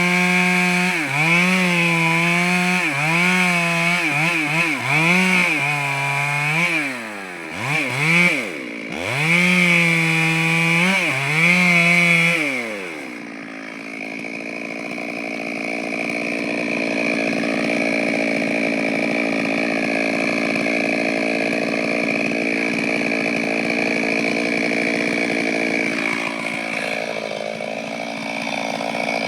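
Two-stroke chainsaw cutting wood, its engine pitch sagging and recovering about once a second as the chain bites under load, with a couple of deeper drops in revs. About 13 seconds in, the revs fall away and the saw settles into a lower, steady running note.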